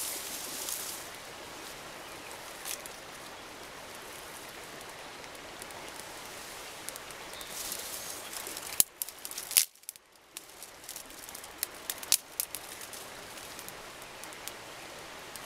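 Small fire of dry twigs crackling, with scattered sharp snaps as dry grass and twigs are handled and fed onto it, over a steady outdoor hiss. The sound drops out briefly about ten seconds in.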